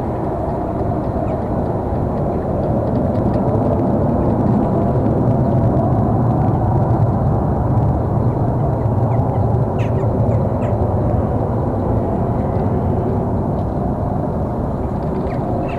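A loud, low, droning hum of unknown origin, steady in pitch, swelling to its loudest about halfway through and easing off again. The uploader wonders whether it is industrial noise.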